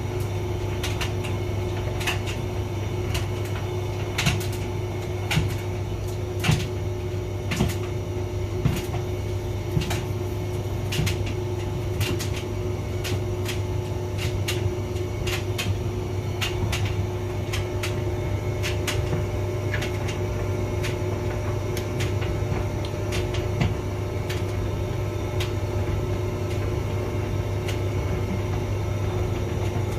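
Hotpoint vented tumble dryer running: a steady low motor and drum hum with a constant tone above it, and irregular clicks and knocks several times a second.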